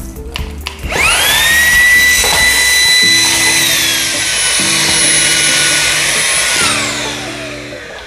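Xiaomi Dreame V11 cordless stick vacuum run on its third power setting: the motor is switched on about a second in with a quickly rising whine and runs with a steady high whine. Around the middle it drops to a somewhat lower pitch, then winds down in a falling whine near the end.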